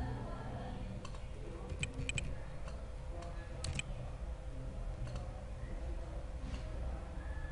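Computer keyboard and mouse clicks: a quick cluster of three sharp clicks about two seconds in and another two or three near four seconds, over a faint steady electrical hum.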